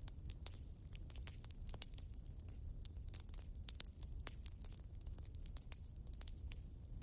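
Wood fire in a fireplace crackling: many small, irregular pops and snaps from the burning logs over a low, steady rumble.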